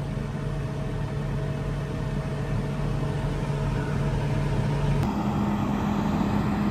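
Tractor engine running steadily with a low hum. About five seconds in the sound switches abruptly to a different, slightly higher steady hum.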